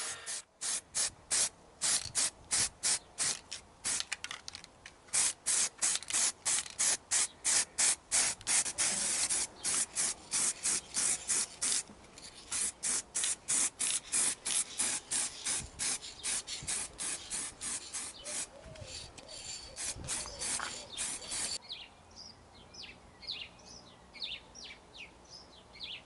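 Rapid back-and-forth hand scrubbing with an abrasive on a steel motorcycle frame bar, about three to four strokes a second, stripping paint and spray body filler back to bare metal. The strokes stop near the end, and birds chirp.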